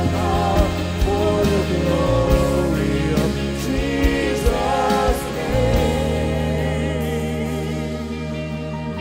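Live worship band and singers performing a praise song: several voices over keyboard, acoustic guitar and hand percussion. About two-thirds of the way through, the singing stops and the band holds a sustained chord.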